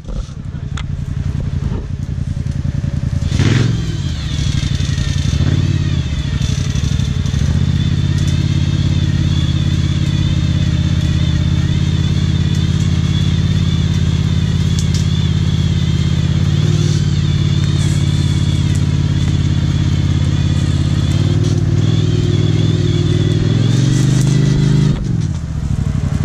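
Quad (ATV) engine running close by and revving. Its pitch rises briefly twice early on, climbs higher over the last few seconds, then drops away sharply near the end.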